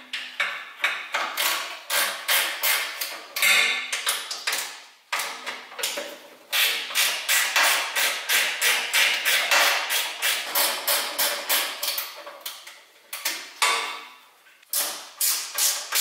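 Runs of rapid clicking and knocking, several a second, broken by short pauses, from hand tools and parts being worked in a car's front end during disassembly.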